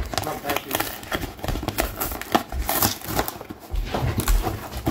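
A parcel being unpacked by hand: irregular crinkling and rustling of packaging, with scattered small taps and clicks.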